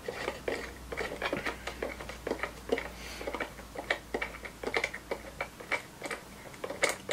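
Irregular light clicks, taps and scrapes of cardboard and plastic as hands work a camera and its plastic mount out of a tight cardboard box.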